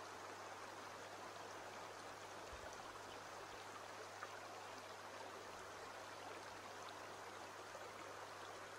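Faint, steady running water of a shallow stream flowing over stones.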